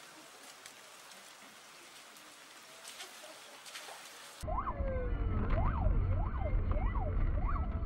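Faint hiss for about four seconds, then a sudden change to loud road rumble heard from inside a car, with an emergency-vehicle siren wailing rapidly up and down, nearly two sweeps a second.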